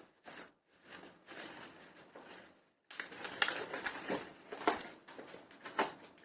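Irregular rustling of packaging, with sharp clicks and knocks, as a camera tripod is unboxed and handled. There is a brief pause about three seconds in, and the handling is louder after it.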